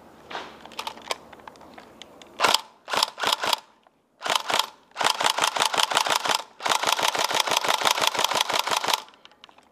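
Tokyo Marui Next Gen SCAR-L electric airsoft rifle firing. A single shot and a few quick shots come first, then bursts on full auto at about a dozen shots a second, the last one running over two seconds.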